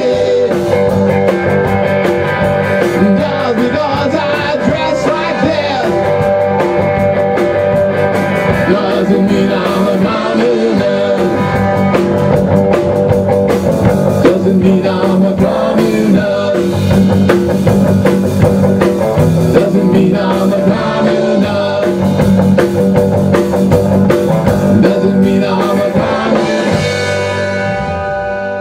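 Rock band playing live: electric guitar, bass guitar and drum kit, with no singing. Near the end a final chord is held and the sound starts to fade.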